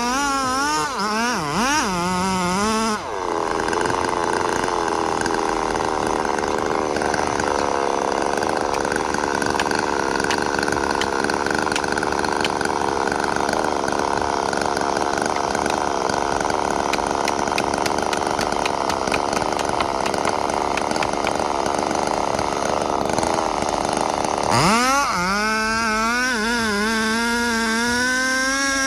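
Chainsaw running steadily at high revs, cutting into a tree. It starts about three seconds in and stops about four seconds before the end.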